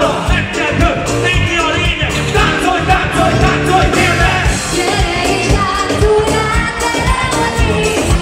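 Live hip-hop band playing: vocals at the microphones over a steady drum beat, bass guitar and the rest of the band, loud and continuous.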